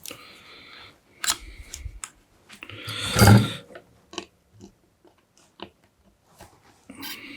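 Small clicks and taps of electronic parts being handled and fitted on a circuit board, with one louder crunching noise about three seconds in.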